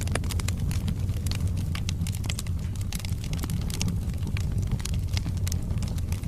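Wood fire burning in a fireplace: a steady low rumble of flames with frequent sharp pops and crackles from the burning logs, scattered irregularly.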